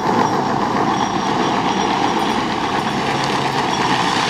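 Hard plastic wheels of a ride-on toy car rolling fast down a paved hill, giving a steady loud rumble.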